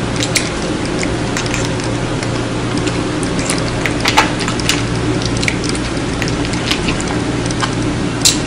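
Steady hiss with a low hum, broken by many scattered small clicks and crackles, one of them louder about four seconds in.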